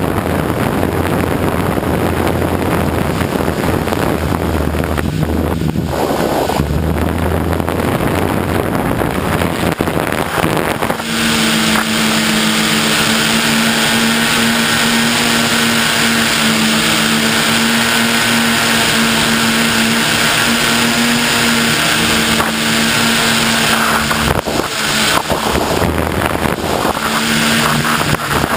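Multicopter drone's motors and propellers running in flight. For the first ten seconds or so, wind noise on the microphone covers them. After that a steady hum with a clear pitch and overtones takes over, wavering briefly near the end.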